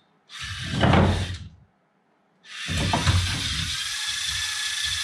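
LEGO Technic rover's electric motors whirring through their gears as its wheels climb over wooden planks: a short burst, a brief silence, then a longer steady run with a thin whine from about four seconds in.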